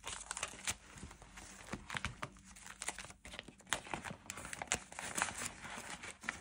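A stack of paper banknotes and a card game sheet being handled and put away: dry rustling and crinkling of the bills with scattered light taps.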